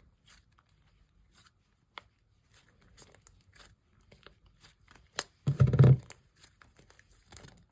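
Butter-textured slime being stretched and kneaded by hand, giving a run of small crackles, pops and sticky tearing sounds, with one louder squish a little before six seconds in.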